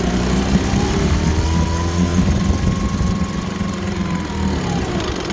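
1954 Johnson QD-15 10 hp two-stroke twin outboard motor running steadily in a test tank, its pitch dipping near the end.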